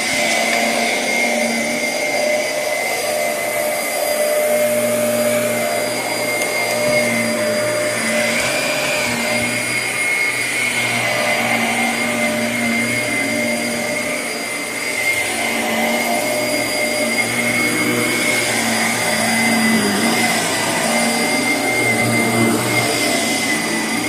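Shark Navigator upright vacuum cleaner running steadily, with a constant high whine over its rushing air noise.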